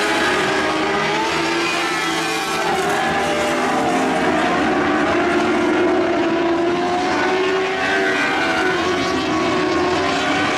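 Winged lightning sprint cars racing on a dirt oval, several engines running at high revs at once, their pitch rising and falling as they are driven through the laps.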